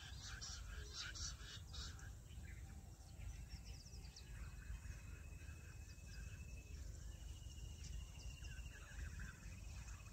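Faint outdoor field ambience: scattered short bird chirps and a thin, steady high trill that starts a few seconds in and shifts slightly higher in pitch about seven seconds in, over a continuous low rumble.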